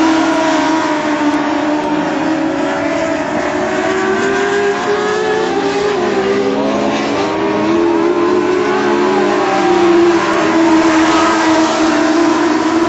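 Several dwarf race cars' four-cylinder motorcycle engines revving together, their pitches rising and falling over one another as they lap the track.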